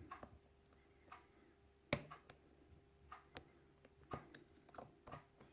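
Faint, irregular small clicks of a hook pick working the pin stacks inside an old brass UAP euro cylinder lock under light tension, with a sharper click about two seconds in.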